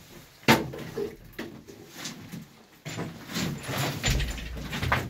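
Footsteps crunching and scuffing on a loose rock-and-gravel cave floor, irregular, starting about three seconds in, after a single sharp knock about half a second in.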